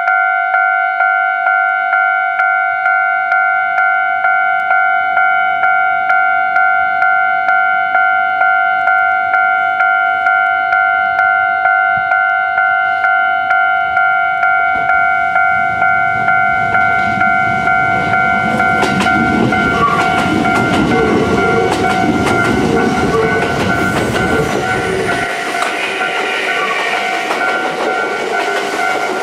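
Japanese level crossing's electronic warning bell ringing evenly about twice a second throughout. About halfway in, a Kintetsu 9000 series and 2610 series express train comes through the crossing: a rising rumble with wheels clicking over the rails. The rumble stops abruptly near the end while the bell keeps ringing.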